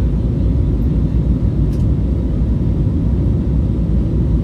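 Steady low rumble of a jet airliner in flight, engine and airflow noise heard from inside the cabin.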